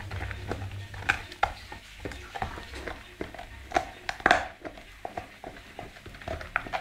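American pit bull terrier gnawing a bone: irregular wet crunches and sharp cracks of teeth on bone, the loudest cracks about four seconds in.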